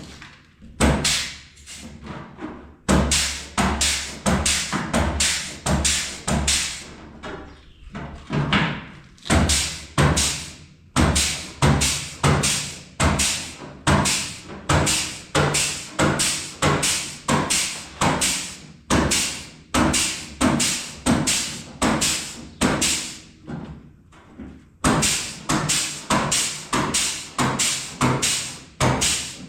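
A flange tool crimping a stepped lip into the edge of sheet-metal body panel, one clamp at a time: a steady run of sharp metallic clunks, about one to two a second, with a few short pauses as the tool is moved along.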